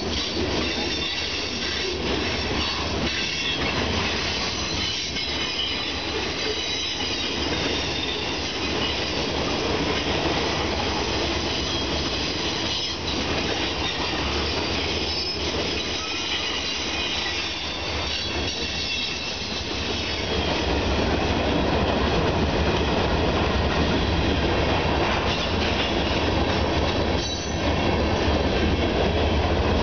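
CSX freight train cars rolling past: a steady rumble and clatter of steel wheels on rail, with high wheel squeal over it. It grows louder about two-thirds of the way through.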